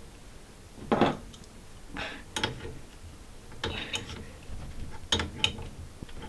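Adjustable wrench working the nut of a toilet's water supply hose: a few groups of short metallic clicks and scrapes, roughly a second apart, as the wrench is set on the nut and turned.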